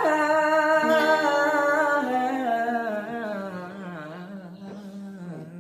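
A man's untreated, effect-free voice singing a long held note with vibrato. The note slowly sinks in pitch and fades over the last couple of seconds.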